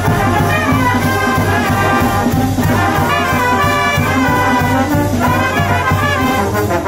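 Brass ensemble playing a swing tune: trumpets and trombones over a steady beat.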